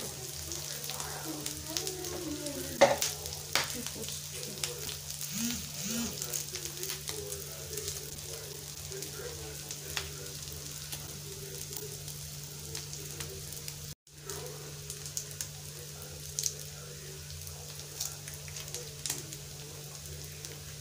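Omena, small dried Lake Victoria sardines, frying in plenty of oil in a pan: a steady sizzle with scattered crackles and pops. The sound cuts out for an instant about two-thirds of the way through.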